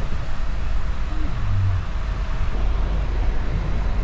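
Steady rumble and hiss of a moving passenger train, heard from inside the carriage.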